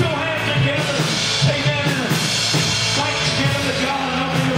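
Live gospel worship music: a drum kit played steadily with a voice singing over the band.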